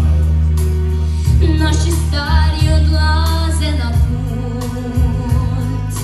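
A woman singing a slow song solo into a handheld microphone, her voice gliding and holding notes, over an accompaniment with a deep bass line.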